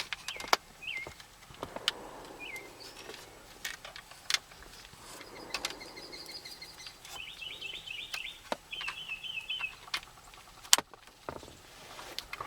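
Scattered light clicks and knocks of plastic dash trim and wiring being handled, with birds chirping and trilling in the background.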